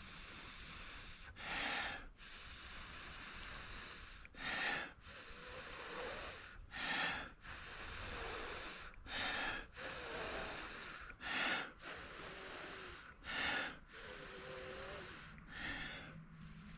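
A person blowing into a smouldering tinder bundle to coax a bow drill ember into flame: seven strong breathy puffs, one every two seconds or so, with quieter breaths drawn in between.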